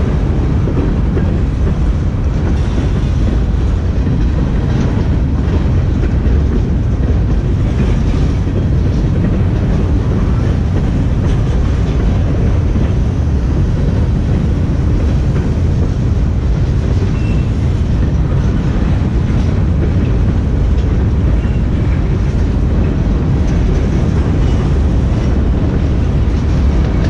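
Freight train cars, covered hoppers and open gondolas, rolling past close by. The steel wheels on the rails make a steady, loud rumble.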